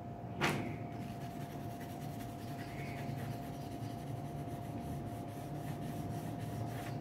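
Pencil scratching on drawing paper in quick repeated strokes, hatching lines into a sketch. A single sharp knock comes about half a second in.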